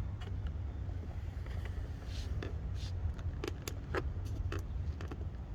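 Scattered light taps and clicks of a plastic stick-on window visor being handled and held against the car's door frame while it is lined up, over a steady low rumble.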